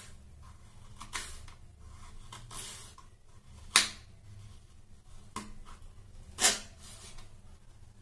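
Kitchen knife chopping fresh ginger on a wooden cutting board: sharp knocks of the blade on the board at an uneven pace, the two loudest about four seconds in and again about two and a half seconds later.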